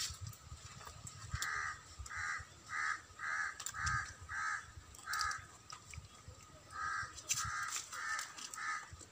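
A crow cawing repeatedly, about two short caws a second: a run of seven, a pause of over a second, then four more.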